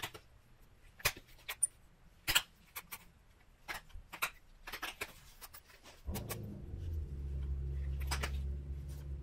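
Pressure flaking of Wyoming tiger (oil) chert with a bison pressure flaker: sharp, irregular clicks, about one or two a second, as small flakes snap off the point's edge. About six seconds in, a low steady hum starts underneath.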